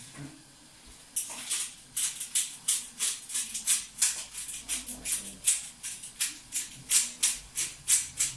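A spice bottle shaken in quick, even strokes of about three a second, its granules rattling, starting about a second in.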